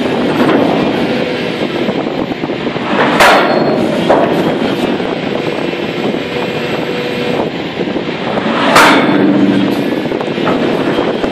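Terminator DX 1800 hydraulic breaker hammering its chisel into hard limestone in rapid continuous blows, with two louder sharp cracks about three and nine seconds in, and a steady hum underneath.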